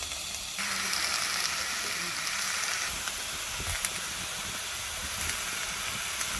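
Meat sizzling on a hot Genghis Khan grill pan: a steady frying hiss with a few small pops, growing louder about half a second in.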